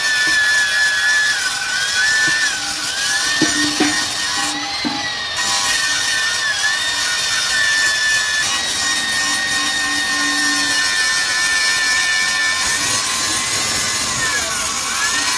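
Electric angle grinder grinding a steel truck wheel rim: a steady high motor whine over the hiss of the disc on metal, the pitch dipping briefly several times as the disc bites in under load.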